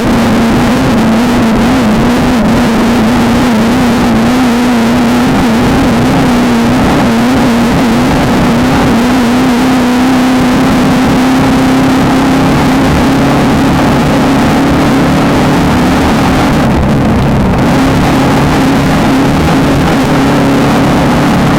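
Off-road race car's engine running hard at high, nearly constant revs for the whole stretch, its pitch wavering slightly at first and holding steadier in the second half, over a constant rush of wind and running noise.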